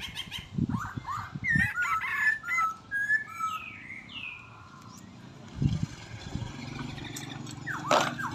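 Bird chirps: a quick cluster of short calls about a second in, then a few sliding calls, with another call near the end.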